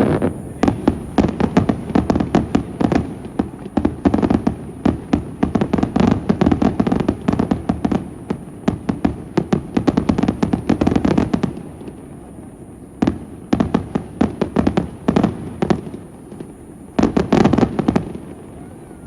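Aerial fireworks bursting in a dense rapid barrage of bangs for about eleven seconds, then a short lull and two more volleys of bangs near the end.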